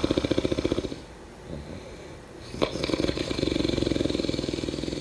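Snoring with a rapid fluttering rattle. One breath fades out about a second in, and after a short pause the next begins abruptly just past halfway and carries on.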